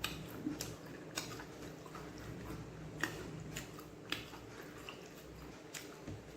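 A person chewing a mouthful of chicken fried rice with the mouth close to the microphone: irregular wet smacks and clicks a few times a second, the sharpest about three seconds in.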